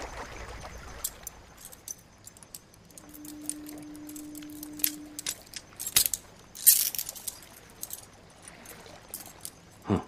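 Metal handcuffs and their chain clinking, with many small clicks as the handcuff lock is picked. A low steady hum runs for about two seconds near the middle, and a brief scraping hiss comes a little past the middle.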